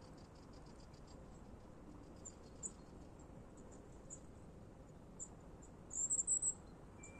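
Faint outdoor ambience with scattered high, thin chirps and ticks from small wildlife, and a short louder burst of chirping about six seconds in.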